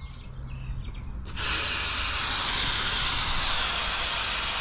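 Refrigerant gas spraying out at the hose fitting on a recovery cylinder's valve: a loud, steady hiss that starts suddenly about a second and a half in.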